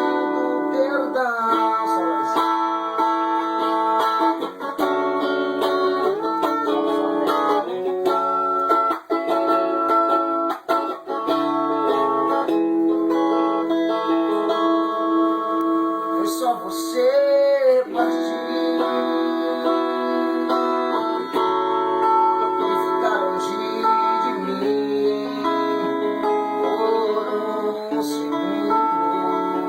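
Music with a plucked guitar playing sustained chords and melody.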